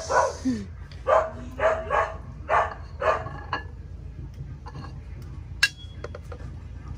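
A dog barking, about seven short barks in quick succession, then stopping about halfway through. A single sharp click follows a couple of seconds later.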